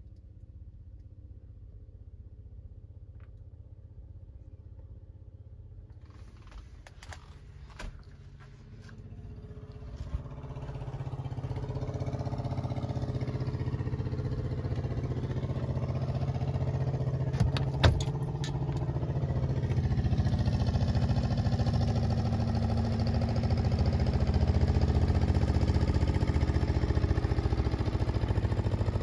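Outboard motor of a small fishing boat running at steady speed, a low hum that grows louder from about a third of the way in as the boat comes closer. A few sharp clicks of handling partway through.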